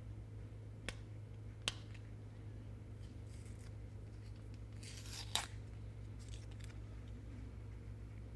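Fingernail scraping and picking at a stuck sticker on an enclosure, faint and intermittent: small clicks about one and two seconds in and a louder scratch about five seconds in. A steady low electrical hum runs underneath.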